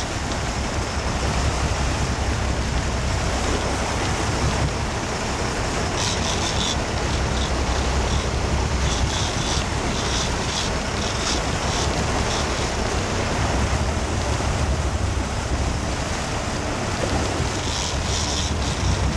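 Sportfishing boat under way: wind buffeting the microphone, rushing water from the wake and a low engine rumble, steady throughout. Brighter hissing comes in short spells about six seconds in, a few times in the middle, and near the end.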